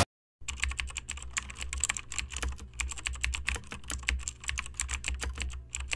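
Computer keyboard typing: a quick, uneven run of key clicks, several a second, over a faint low hum.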